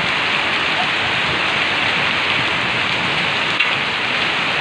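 Heavy rain falling steadily on a waterlogged street.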